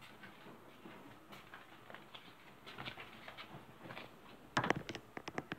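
Metal cooking utensil stirring spaghetti in a large pot, with scattered light taps and scrapes. Near the end comes a quick run of about six sharp metallic knocks against the pot.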